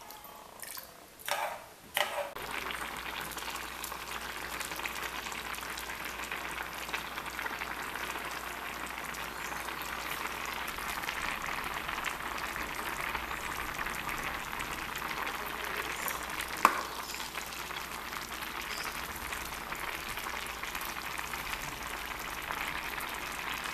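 Pot of rice with pequi boiling hard, a steady bubbling hiss. A few light knocks of a metal spoon against the pot come in the first two seconds, and there is one sharp click about two-thirds of the way through.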